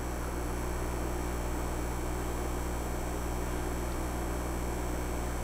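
Steady, even hum of a TomTec Quadra 4 SPE automated liquid handler idling with its panels off, a few low tones under a light hiss, with no motor strokes or clicks.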